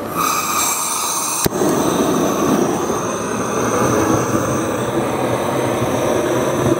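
Cordless, drill-style propane fire starter torch: a steady high whine, then a single sharp click about a second and a half in as it lights, followed by the steady rush of its flame blasting into the kindling.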